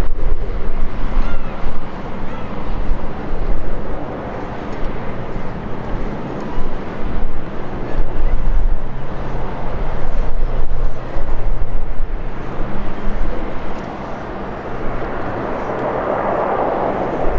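Twin-engine jet airliner's engines heard across the airfield as it rolls along the runway, under a low rumble that keeps rising and falling. The engine rush swells near the end.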